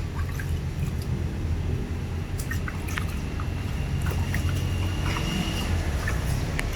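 Water pouring and dripping during a bath over a steady low rumble, with scattered small clicks and splashes.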